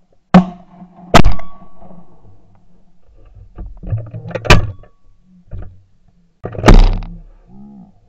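Four 12-gauge over-and-under shotgun shots fired at flying clays: two close together in the first second or so, another at about four and a half seconds, and a last one near the end, each trailing off with a short echo.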